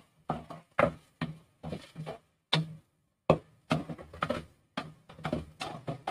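A cooking spoon knocking and scraping against a nonstick pot as spiced chicken liver masala is stirred and fried. The strokes come about two to three a second, unevenly.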